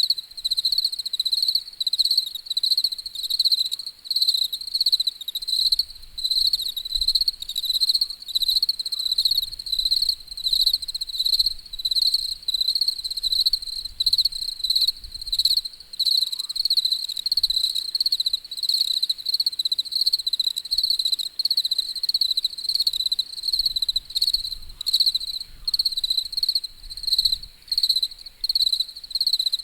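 Crickets chirping: a high-pitched trill pulsing in a steady, even rhythm.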